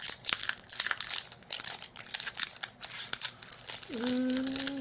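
A Pokemon booster pack's foil wrapper crinkling in quick, irregular crackles as it is torn open and handled by hand.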